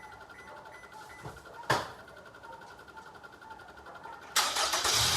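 A Honda SUV's engine cranking and catching about four seconds in, then running with a steady low hum. Before that, a faint, evenly pulsing chime from the car and one sharp click.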